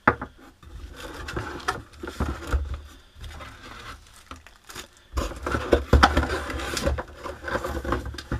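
Plastic wrapping crinkling and a cardboard box scraping and knocking as a boxed power tool and its bagged accessories are handled and lifted out. It comes in two spells of rustling, the second starting about five seconds in and louder, with small knocks throughout.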